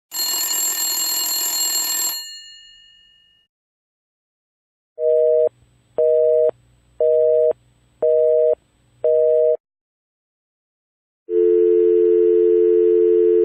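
Telephone sound effects in sequence. First a bell ring of about two seconds that dies away. Then a busy signal of five half-second two-tone beeps, one a second, and from about eleven seconds in a steady dial tone.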